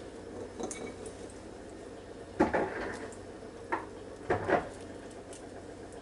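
Eggshell being picked off a soft-boiled egg by hand, with a handful of light knocks and clinks of shell and egg against a ceramic bowl, the loudest about two and a half seconds in.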